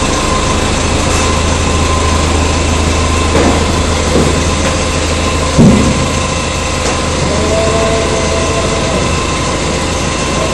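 Doosan forklift engine running as the forklift moves inside a steel shipping container, with a loud knock a little past halfway. A short steady two-note tone sounds twice in the second half.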